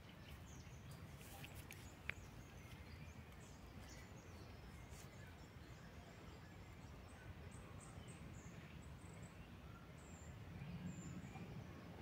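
Quiet woodland ambience: faint, short, high-pitched chirps of small birds scattered throughout over a low steady rumble, with one sharp click about two seconds in.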